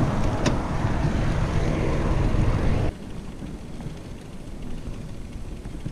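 Wind noise on the microphone of a moving bicycle, loud and low. It cuts off suddenly about three seconds in, giving way to a much quieter low rumble as the bicycle rolls through a concrete parkade.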